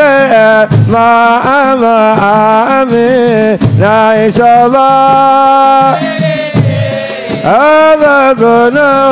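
Male singing of a Comorian kasuda, a devotional Islamic praise song. The melody bends and ornaments, then settles into long held notes a little past the middle.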